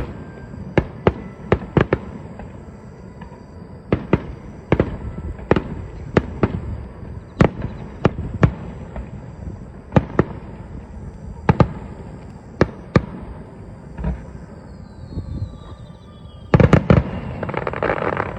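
Aerial fireworks bursting: single sharp bangs at irregular intervals, a falling whistle about three-quarters of the way in, then a dense volley of bursts with crackling near the end.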